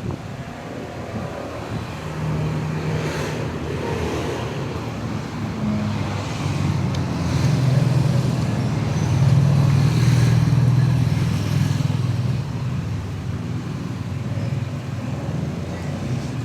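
A motor vehicle engine running amid road traffic, a low steady hum that grows louder about eight seconds in and eases off after about twelve.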